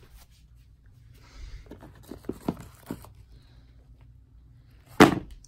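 Phone handling noise as the phone camera is moved over clothes: rustling and a few light knocks, then one loud thump near the end.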